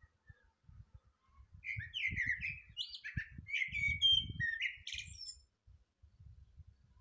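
A thrush singing: one song phrase of clear whistled notes, starting about one and a half seconds in and lasting about four seconds, with thin high notes near its end.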